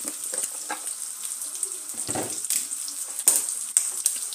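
Pieces of beef tripe sizzling in a frying pan: a steady hiss with scattered sharp pops and crackles, a couple of louder pops a little after three seconds in.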